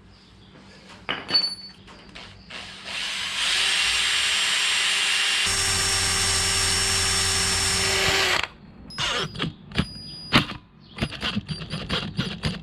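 A handheld power tool runs steadily for about five seconds, its sound filling out and deepening about halfway through, then stops. Short clicks and knocks of tools being handled come before and after it.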